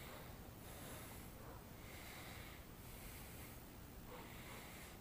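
Faint, slow, steady breathing of a rider inside a full-face motorcycle helmet, heard close to the helmet-mounted microphone, with breaths coming and going about once a second.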